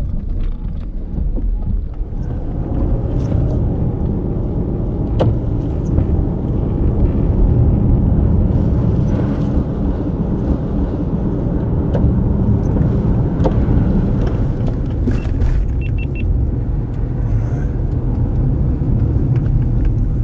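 A car driving: a steady low rumble of road and engine noise heard from inside the vehicle, with a few sharp clicks and knocks.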